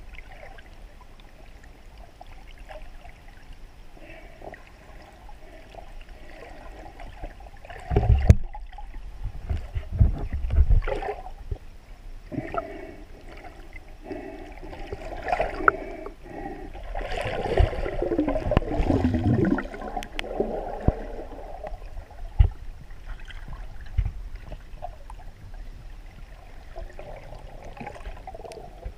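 Muffled water sloshing and gurgling heard through a GoPro's waterproof housing underwater. There are a few dull knocks around eight to eleven seconds in, and a louder swell with a falling sweep a little past halfway.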